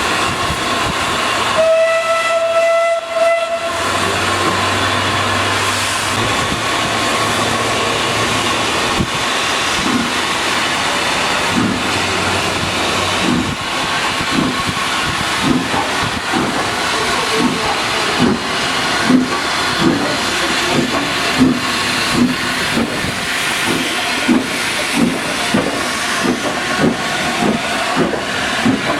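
A train whistle sounds once for about two seconds, then the departing passenger train pulls away with a regular beat that quickens steadily as it gathers speed. A steady hiss of steam runs underneath.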